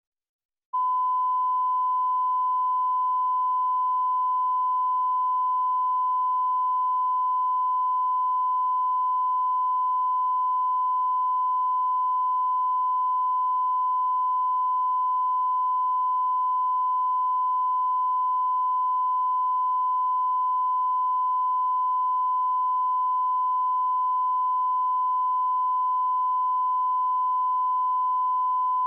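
1 kHz reference tone that accompanies SMPTE colour bars: a single steady beep that starts about a second in and holds unchanged. It is the line-up tone used to set broadcast audio levels.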